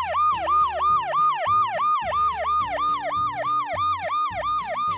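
Electronic fire-truck siren in a fast yelp: a wail that sweeps quickly up and down about three to four times a second, without a break.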